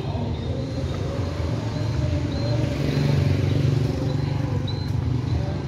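Motor scooter engine running as it passes on the street, loudest about three to four seconds in, over a steady low traffic rumble.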